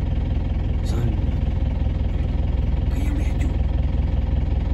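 Vehicle engine running steadily, a constant low drone, with faint brief voices about one and three seconds in.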